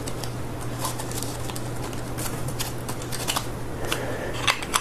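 Small cardboard box and foam packing being handled and pushed back together: scattered light scrapes and clicks over a steady low hum.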